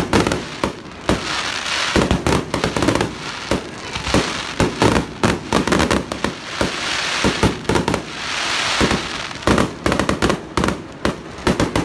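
Fireworks display: many sharp bangs and pops in quick succession, with stretches of crackling, hissing sparkle from the bursting shells between them.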